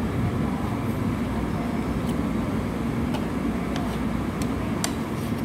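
Steady low hum of a restaurant dining room's ventilation and background noise, with a few faint clicks scattered through it.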